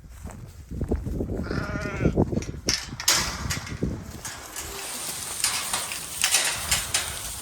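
A sheep bleats once, about one and a half seconds in, over low footstep-like thuds; after that there is a steady rustling noise with clicks.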